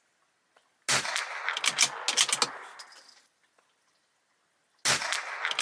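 Two .22LR rimfire shots from a Bergara B14R bolt-action rifle, about four seconds apart. Each shot is followed by a quick run of metallic clicks as the bolt is worked, with the empty cases sticking in the action instead of ejecting cleanly.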